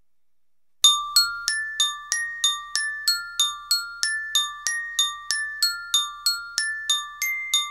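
Music: a bell-like mallet melody, glockenspiel-like, starting about a second in with evenly paced notes, about three a second, each ringing briefly.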